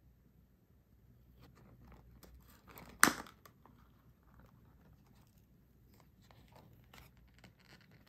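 Clear plastic lid of a plastic sweets tray being pried open: light crinkling and clicks, then a loud snap about three seconds in as the lid pops free, followed by softer plastic rustles and clicks as it is handled.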